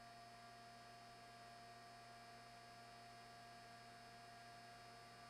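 Near silence: a faint, steady hum with a thin steady tone over it.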